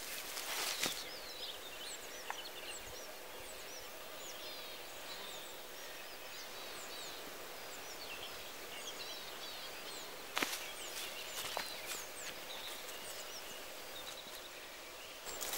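Small birds chirping in short, repeated calls over a steady outdoor background. Footsteps of rubber boots on dry grass and forest litter rustle at the start, once about two-thirds in, and again at the end.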